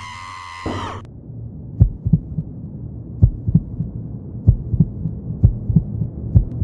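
Cartoon sound effect of an explosion heard muffled: short low thumps, a few a second in small runs, over a low rumble. A ringing tone at the start stops about a second in.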